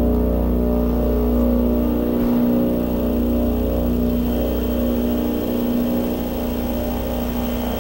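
Electronic feedback drone: a steady low hum with layered sustained tones over a deep bass rumble. The bass thins out a little over two seconds in.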